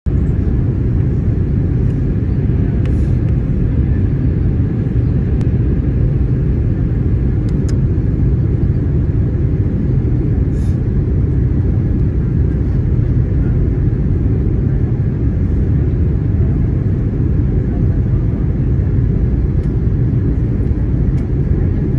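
Steady low rumble of an Airbus A321neo in flight, its engine and airflow noise heard from inside the passenger cabin.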